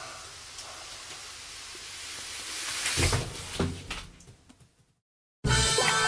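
A steady hiss that swells slightly, then two thuds about half a second apart as it dies away. Music starts near the end.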